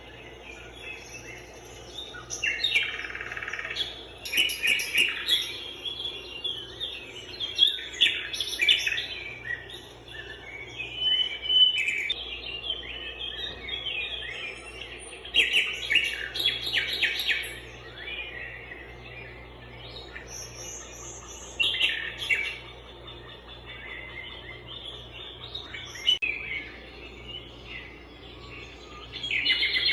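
Several small songbirds chirping and trilling, their calls overlapping in clusters, over a faint steady low hum.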